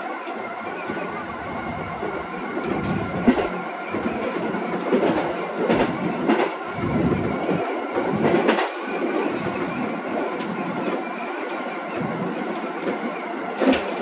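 Keio Line commuter train running along the track: a steady running noise with a few sharp clacks from the wheels over the rails.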